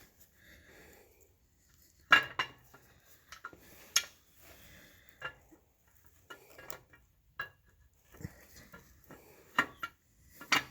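Camshaft being slid into a small-block Chevy 355's cam bearings: irregular metallic clinks and knocks, the loudest about two and four seconds in and again near the end.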